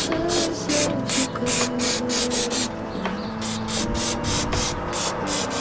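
Background music with a fast, evenly ticking hi-hat beat over sustained tones.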